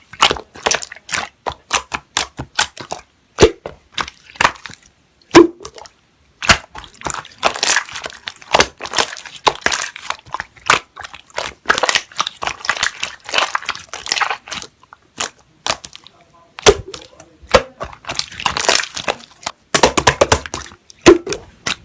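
Slime being pressed, squeezed and stretched by hand, giving dense runs of crackling and popping clicks in bursts with brief pauses between them.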